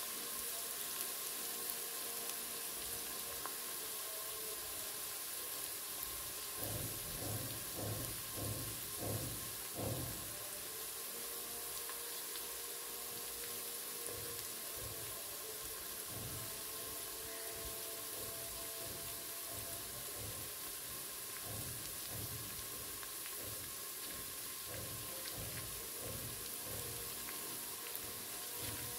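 Grated garlic sizzling gently in a little oil in a pressure-cooker pot over low to medium heat, a steady soft hiss as it browns toward golden. A few faint low sounds come in behind it between about six and ten seconds in.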